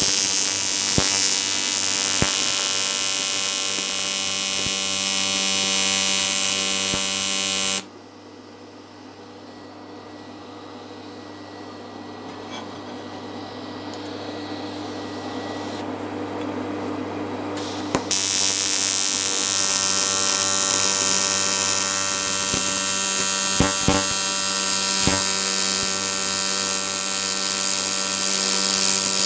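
AC TIG arc from an R-Tech 261 inverter welder tacking a cracked aluminium casting: a steady, harsh buzz with many evenly spaced overtones for about eight seconds. A pause with only a much quieter hum follows, and then a second arc of about eleven seconds starts some eighteen seconds in.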